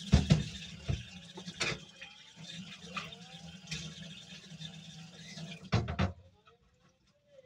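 A metal table knife clicking and scraping against the plates of an electric waffle-stick maker as the cooked waffle sticks are pried loose. There are a few sharp knocks, the loudest right at the start and a quick cluster about six seconds in.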